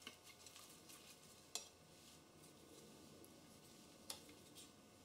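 Faint sounds of a silicone spatula stirring a thick almond paste in a nonstick pan, with a few short knocks of the spatula against the pan: one right at the start, the loudest about a second and a half in, and one near the end.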